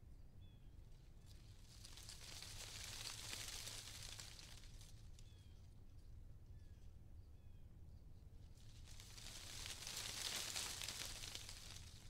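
Wind gusting through trees, the leaves rustling in two slow swells that rise and fall, with a few faint short bird chirps in the quieter stretch between them.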